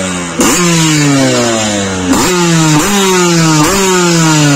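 2008 Yamaha YZ85's two-stroke single-cylinder engine revved in quick throttle blips: the revs jump up sharply about four times, sinking slowly after each.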